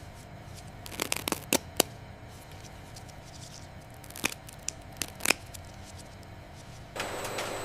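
Low steady machine hum with scattered sharp clicks and rustles, a cluster about a second in and a few more around four to five seconds in; a louder steady rushing noise comes in near the end.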